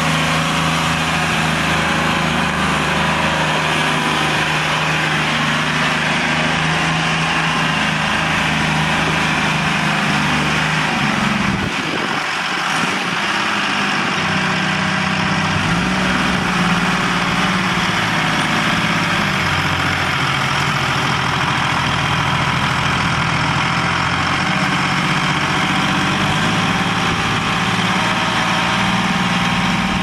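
Erie Bucyrus backhoe's three-cylinder diesel engine running steadily at idle. About twelve seconds in, the low drone drops away briefly, then the engine sound returns with a slightly different pitch and carries on.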